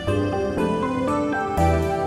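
Gentle instrumental background music with sustained pitched notes, a new bass note coming in about one and a half seconds in.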